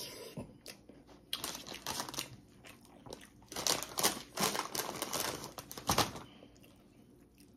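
Packaging crinkling and rustling as it is handled, in several bursts.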